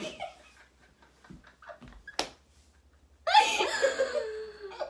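Girls' laughter trailing off, then a mostly quiet stretch broken by a single sharp click about two seconds in, then a sudden loud burst of high-pitched giggling for the last second and a half.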